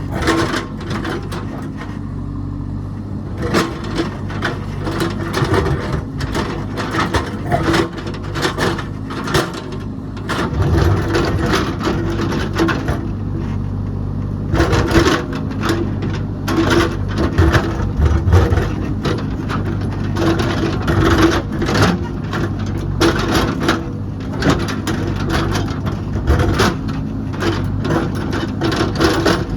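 Heavy construction machine's engine running steadily, with many irregular clanks and knocks over it.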